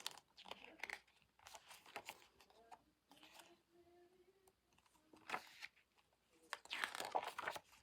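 Paper rustling as the glossy pages of a K-pop album photobook are handled and turned, in scattered soft rustles with a longer rustle near the end.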